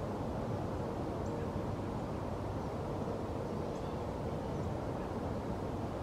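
Steady low outdoor rumble of background noise, with a few faint, short high chirps now and then.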